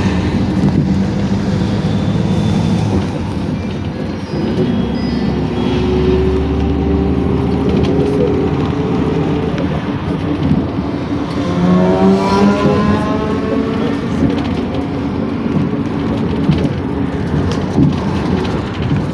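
PAZ Vector Next city bus running along the road: steady engine and road rumble, with a rising whine about twelve seconds in as the engine picks up speed.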